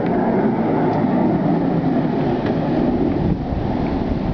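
Steady rushing noise of ocean surf and wind, with wind rumbling on the microphone from about three seconds in.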